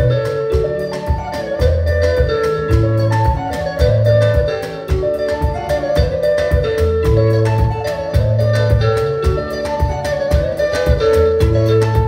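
A live band playing rumba: a clean electric guitar picks a bright, marimba-like melody over a repeating bass line, keyboard and drum kit keeping a steady beat.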